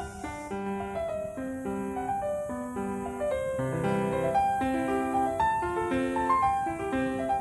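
Background piano music: a gentle melody of many short notes over changing chords.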